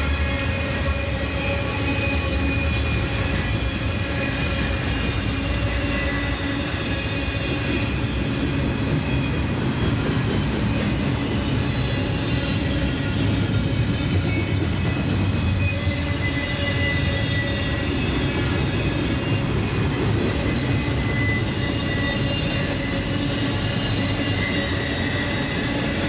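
Intermodal trailer-on-flatcar freight train rolling past at speed: a steady rumble of wheels and cars on the rails, with a few faint held high tones over it.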